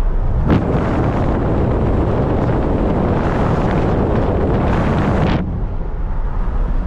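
Wind buffeting the microphone over road and engine noise from a moving pickup truck. The wind noise drops off suddenly about five seconds in, leaving a steady low rumble.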